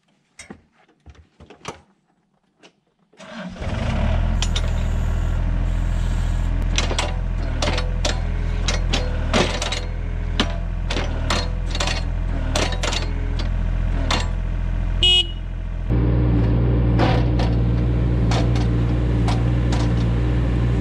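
Diesel engine of a Deere 27D mini excavator starting about three seconds in and running steadily, with repeated sharp clicks and knocks over it. About 16 seconds in the engine speeds up and runs louder as the throttle is raised, just before the new hydraulic thumb is worked.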